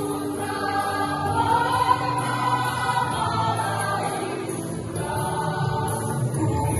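A choir singing, the voices holding long notes.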